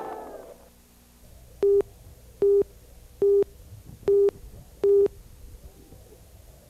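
Five short beeps on one steady tone, evenly spaced a little under a second apart.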